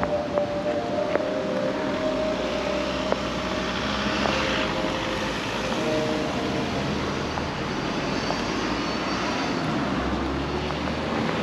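Aventon Adventure e-bike riding along: a steady rush of tyre and wind noise with a faint whine that comes and goes, and a low rumble from about two seconds in.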